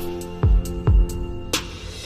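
Background music: held chords over a soft drum beat.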